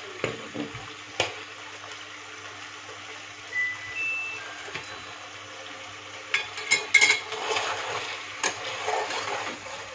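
Chicken pieces sizzling steadily in oil in a stainless steel pot. From about six seconds in, a metal spoon stirs and scrapes the chicken against the pot, with repeated sharp clinks.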